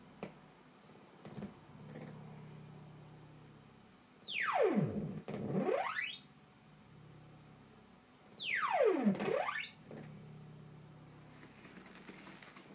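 Analogue modular synthesizer: sine oscillators from a MOTM-300 VCO and MOTM-320 fed through a MOTM-510 wave warper. A low steady drone is broken twice by huge pitch glides that dive from very high to very low and climb straight back up, about four and eight seconds in, with a short high falling chirp about a second in.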